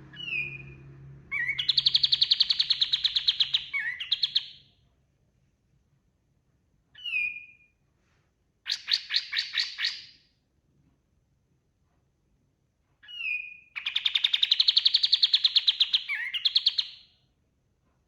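Kapas tembak songbird singing: short whistled notes followed by fast, rapid-fire trills, in three bouts of song separated by pauses of a few seconds.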